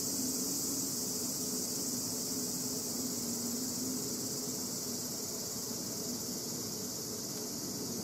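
Cicadas singing in a steady, high-pitched summer chorus, with a faint wavering low hum beneath. No arrow strikes the target.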